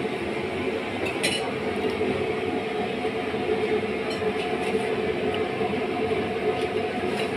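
A steady mechanical hum with a held tone, with light clinks of dishes over it, the sharpest about a second in.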